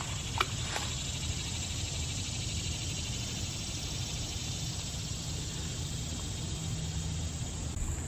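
Late-summer chorus of crickets and other insects trilling steadily, with a brief click about half a second in.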